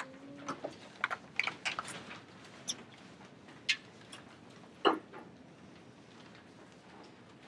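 Irregular clicks and taps of laptop keyboards and trackpads for about five seconds, with one louder knock near the five-second mark, then quiet room tone. A short low squeak sounds at the very start.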